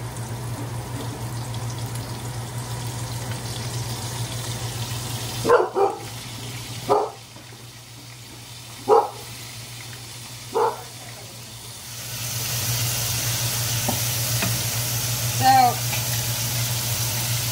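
Calamari rings deep-frying in a skillet of hot oil, sizzling over a steady low hum; the sizzle grows clearly louder about two-thirds of the way through. Between about five and eleven seconds in, four or five short, sharp pitched calls break in.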